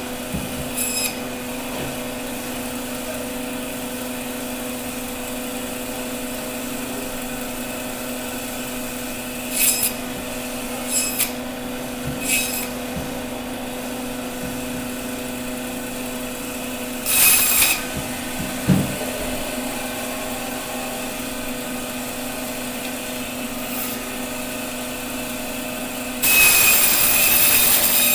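Meat band saw running with a steady hum, its blade cutting through pieces of aair catfish in short rasping passes: a few brief cuts about ten to twelve seconds in, a louder one around seventeen seconds, and the longest, loudest cut near the end.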